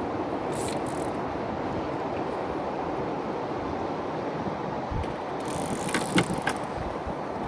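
Steady wind noise on the microphone, with a short cluster of sharp clicks about six seconds in.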